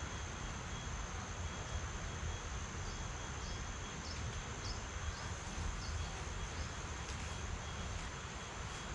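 Steady insect chorus, with a run of short high chirps about twice a second from about three seconds in to about seven seconds in, over a low rumble.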